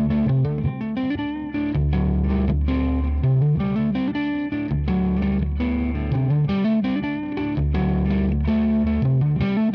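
Gibson ES-175 hollow-body electric guitar played through an analog delay pedal: a picked pattern of notes over low bass notes that return every few seconds.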